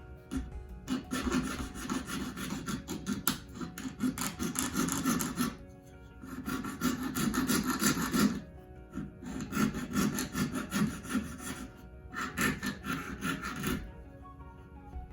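Jeweler's saw cutting copper sheet: runs of quick, rasping back-and-forth strokes broken by short pauses, about four runs in all. Faint background music underneath.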